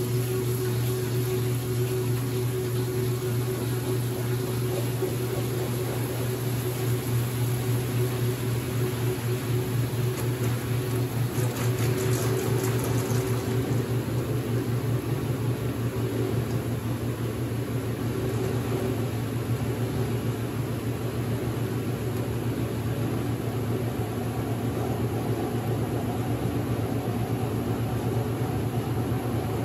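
Late-1970s Maytag A806 top-load washing machine running mid-cycle, its motor giving a steady hum with a few steady higher tones above it.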